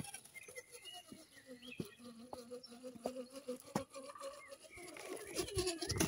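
Faint birds chirping, over a quiet steady whine from a small RC crawler truck driving. Near the end the crawler's tyres grind and scrape on a pebble-faced stone step as it climbs.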